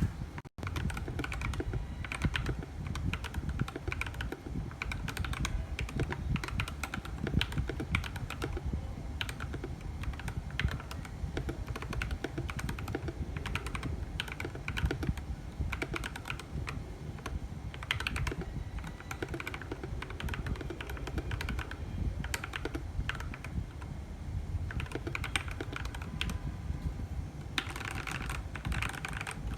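Continuous fast typing on an FL mk870 mechanical keyboard with Gateron Pro Silver linear switches and XDA-profile keycaps: a rapid, uneven stream of key clacks with some louder strokes scattered through.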